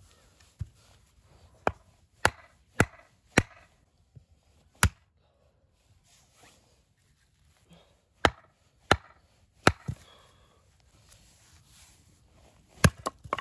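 Firewood being chopped into pieces: about a dozen sharp, separate knocks, in small irregular groups, with a quiet pause of a few seconds in the middle and two quick knocks near the end.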